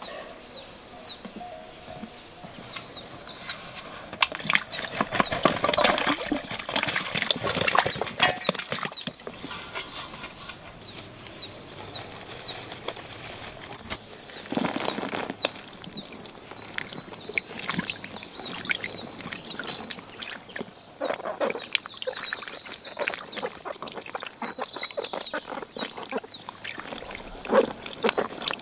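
Water splashing in a tub as eggplants are washed and handled, in several bouts, loudest between about four and nine seconds in. Birds chirp over it, a short call repeated quickly throughout.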